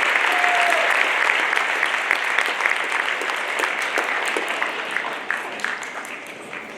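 Audience applauding, loudest at first and dying away steadily toward the end.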